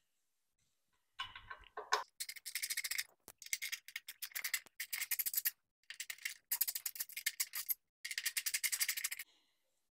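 Ratchet tool clicking in quick runs of rapid, even ticks, about half a dozen bursts with short pauses between them, as star-head (Torx) bolts are loosened and backed out.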